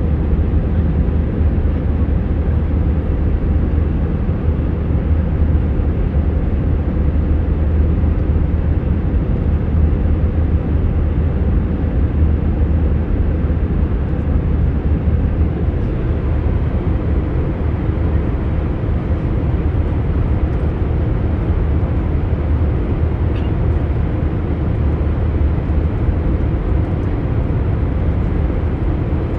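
Steady cabin noise of a commercial jet airliner at cruising altitude: a constant deep rumble and airy hiss of engines and airflow, with no change throughout.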